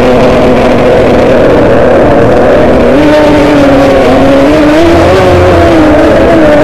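Racing outboard engine of an 850cc Modified Runabout race boat running hard, heard onboard. Its pitch holds steady, rises about halfway through, then wavers up and down.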